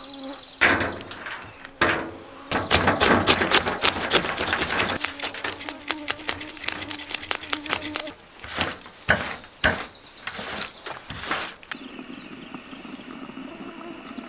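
Knife scaling a fish on a metal tabletop: a dense run of rapid scraping strokes, then a few separate scrapes and knocks.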